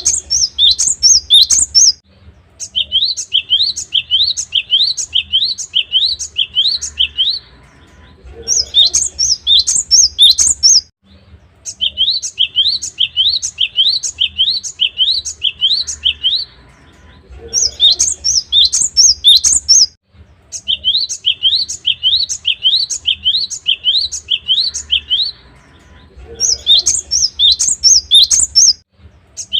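Cinereous tit (gelatik batu) singing: runs of quick, rising, high-pitched notes, a short higher run alternating with a longer lower one, each run a few seconds long and separated by brief pauses.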